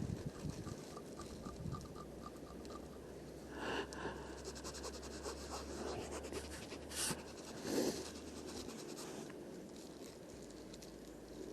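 Scratching and rustling handling noise, with a few short louder scuffs.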